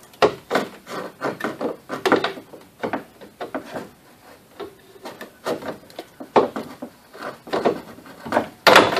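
Pry bar levering at the plastic tabs that hold the AC condenser and transmission cooler to a car radiator: an irregular run of creaks, scrapes and knocks as the tabs are broken off, with the loudest crack near the end.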